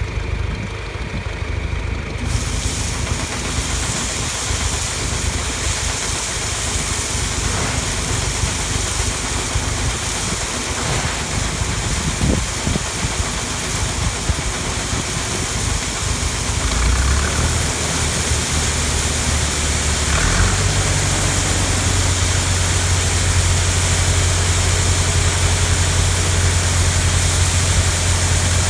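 A farm machine's engine running steadily under a hiss. A little past halfway the low hum steps up twice and then holds steady and louder.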